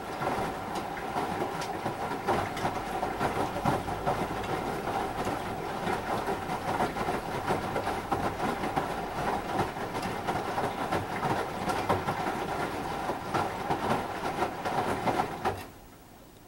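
Samsung WD136 front-load washer-dryer tumbling wet clothes in its wash cycle: water sloshing and fabric slapping in the turning drum over a steady hum. It stops suddenly about fifteen seconds in as the drum comes to rest.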